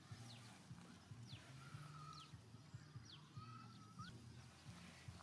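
Near silence: faint outdoor ambience with a low steady hum and short, falling high chirps repeating irregularly, with a couple of brief higher calls about two and three seconds in.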